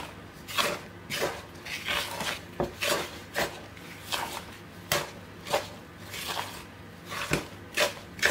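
Wooden spoon stirring thick cake batter in a mixing bowl, scraping and knocking against the bowl's sides in short strokes about twice a second.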